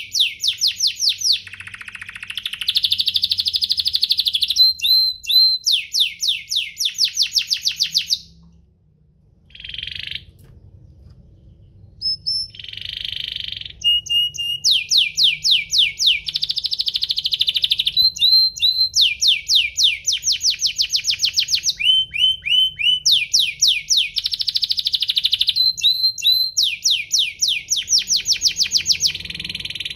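Domestic canary singing a long song of fast, high-pitched trills and rolls, one phrase quickly following another. It breaks off for a few seconds about a third of the way through, with only a couple of short notes, then resumes.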